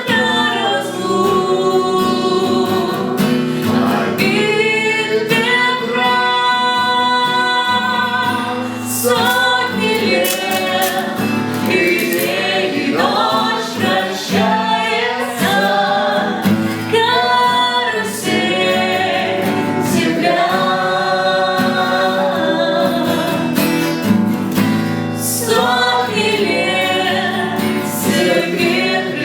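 A song sung by a group of voices, with women's voices and a guitar accompaniment.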